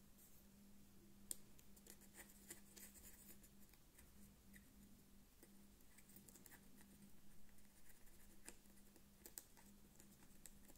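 Faint scratching and scattered light clicks of a wooden toothpick scraping built-up grime out of the edges and grooves around a knob on a Technics SL1210 MK2 turntable deck, over a faint steady low hum.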